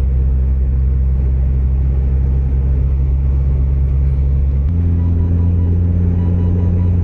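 A car driving on the highway: a steady low engine drone with road rumble. The drone steps up in pitch about four and a half seconds in.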